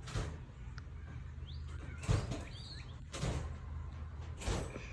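Faint bird chirps over a steady low hum, with four short rustling sounds about a second apart.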